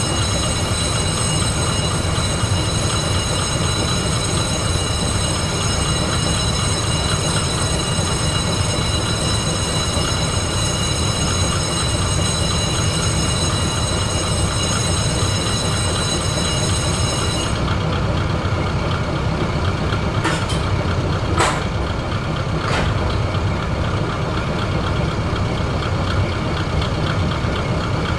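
Diesel railcar standing at a station with its engine idling: a steady low rumble. A high whine on top cuts off about two-thirds of the way through, and a few sharp clicks follow.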